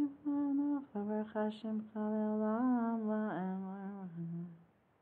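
A woman's solo voice, unaccompanied, singing a slow prayer melody in long held notes that step between pitches, with a few short breaks; it ends about four and a half seconds in.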